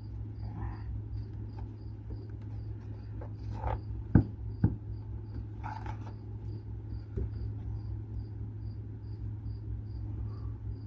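Two sharp knocks about four seconds in, half a second apart, with a few light scrapes from handling parts or tools, over a steady low hum. A cricket chirps evenly, about three times a second, the whole time.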